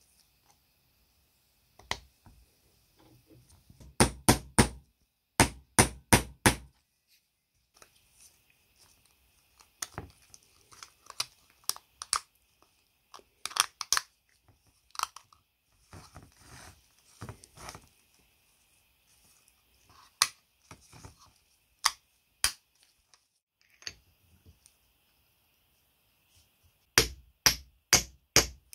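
Metal parts of an old electric motor being handled and fitted together by hand: scattered clicks and knocks. Quick runs of four or five heavier knocks come about four and six seconds in and again near the end.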